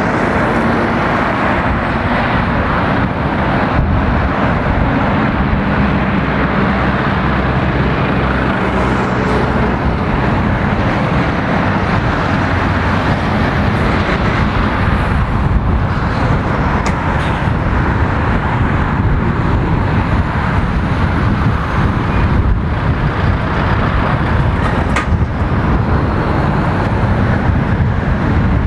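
Road traffic with heavy lorries passing close by on a dual carriageway: a steady drone of diesel engines and tyre noise, with a lorry's low engine note holding steady through the first several seconds.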